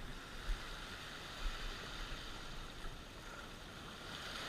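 Steady wash of the sea against rocks, with a couple of brief low bumps.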